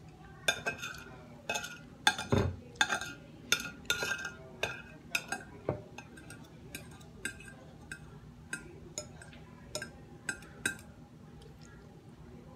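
Metal spoon and fork clinking and scraping against a plate and bowl while eating. A quick run of clinks comes over the first six seconds, with one heavier knock about two seconds in, then sparser clinks that stop about two seconds before the end.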